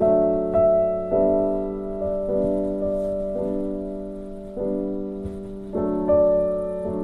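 Slow, gentle piano music: sustained chords struck about once a second, each fading before the next.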